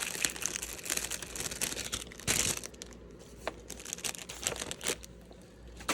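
Plastic packaging crinkling as it is handled, dense for the first few seconds with a louder rustle about two seconds in, then thinning to scattered crackles.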